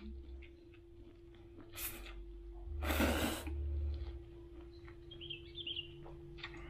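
A person slurping rice vermicelli noodles into the mouth: a short slurp just before two seconds in, then a longer, louder slurp about a second later.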